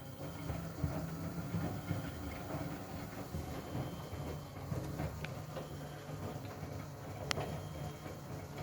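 Miele W Classic front-loading washing machine in a wash cycle: its motor hums steadily as it turns the drum, with a few light knocks.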